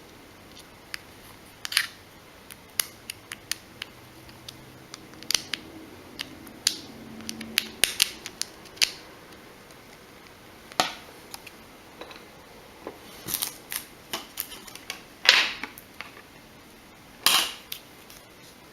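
Irregular small sharp clicks and ticks, with a few short scrapes near the end, from a small screwdriver and plastic and metal phone parts being handled while a phone is screwed back together.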